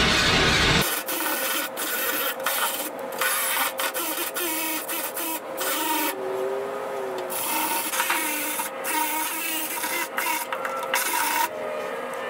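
Background music briefly at the start, then a small handheld power tool running against rusty sheet metal overhead to strip the rust, its tone wavering as it loads up, with irregular scraping and ticking against the metal.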